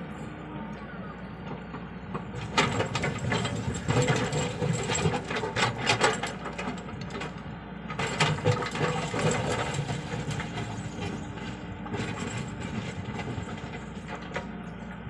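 Komatsu PC75UU excavator's diesel engine running steadily under work, with three spells of metallic clanking and scraping from the bucket and boom working the soil.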